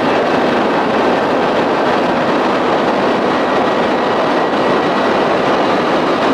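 Evinrude outboard, a 25 hp converted to 30-35 hp, running steadily under way, blended with a loud rush of wind and water.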